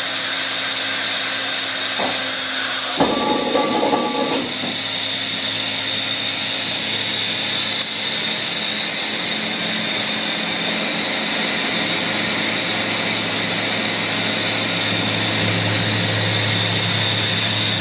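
Makino A71 CNC horizontal machining center running, a steady mechanical hum with a high whine and hiss. About two seconds in, a louder, noisier stretch with a couple of steady tones lasts around two seconds, then the steady running carries on.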